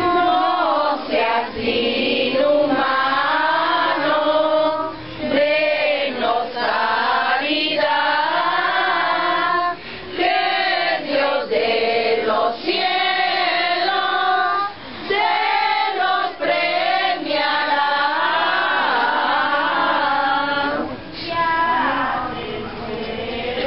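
A crowd of voices singing a posada hymn together, in sung phrases with short breaks between them.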